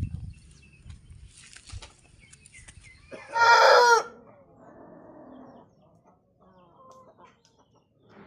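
An aseel rooster crowing once, about three seconds in: a short, loud, strained call that trails off into a quieter, rougher tail. Faint clicks and a thin high steady tone come before it.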